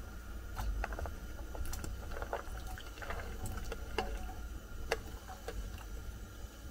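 Sliced vegetable pieces pushed by hand off a ceramic plate into a stainless steel pot of water: irregular small plops and splashes, with light taps and scrapes of the pieces and fingers against the plate and the pot rim.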